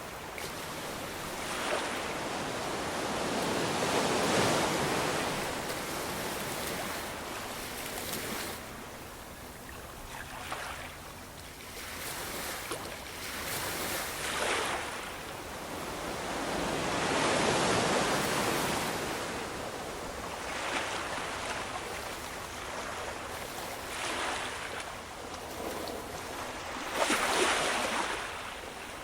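Ocean waves surging and breaking in slow, uneven swells, each rising to a rush and falling away; the biggest come about four seconds in, in the middle, and near the end.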